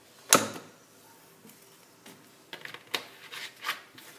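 A sharp knock about a third of a second in, then a run of light clicks and taps from about two seconds in: kitchen items being handled and set down on the counter beside a glass blender jar.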